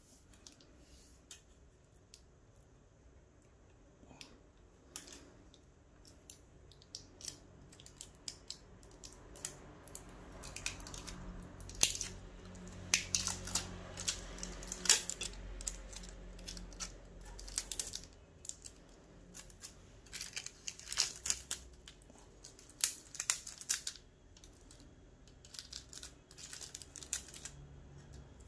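Graphics card packaging being opened and handled: rustling, crinkling and tearing of wrapping, with scattered clicks and taps. It starts sparse and gets busier after a few seconds, with a low rumble of handling near the middle.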